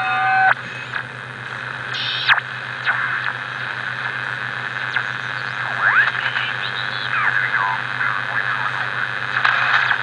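RBM-1 Soviet military valve receiver tuned by hand across the band in AM. A cluster of steady tones cuts off about half a second in, leaving hiss and static over a low steady hum, with whistles gliding up and down as the dial passes signals.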